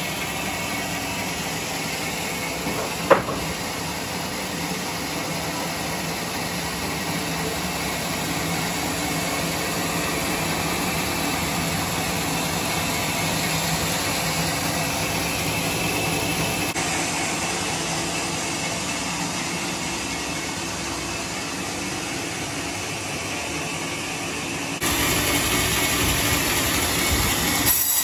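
Homemade circular sawmill running: a steady mechanical drone with hiss, a single sharp knock about three seconds in, and a sudden step up in loudness near the end.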